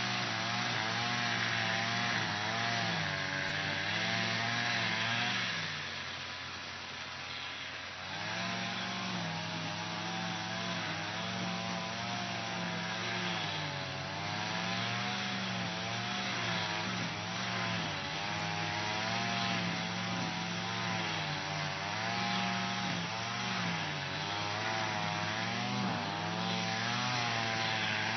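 Lawn mower engine running steadily, its pitch wavering up and down every second or two, with a quieter, lower-pitched stretch about six seconds in.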